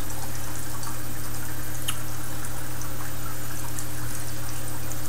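Steady background hiss with a low, constant hum and a faint click about two seconds in.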